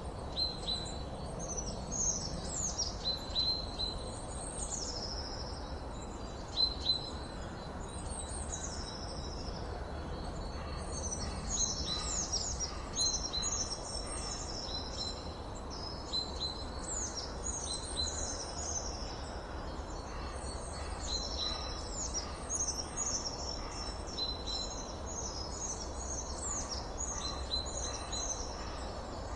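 Many songbirds singing, short high chirps and trills overlapping one another almost without pause, over a steady low background rumble.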